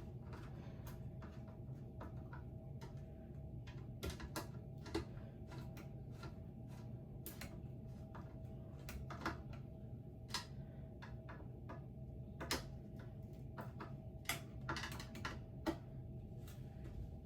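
Irregular small clicks and light knocks of metal and plastic parts and screws being handled during ceiling fan assembly, over a steady low hum.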